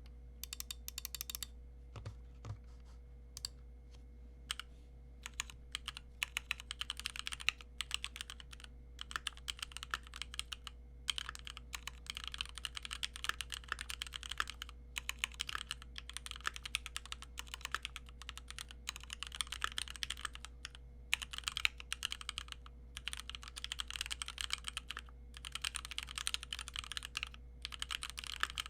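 Typing on a stock Keychron Q1 aluminium mechanical keyboard with Gateron G Pro Red linear switches. At first it is single keystrokes a moment apart; from about six seconds in it becomes fast, continuous runs of key clacks broken by short pauses. The uploader finds this stock board still has some metallic case ping.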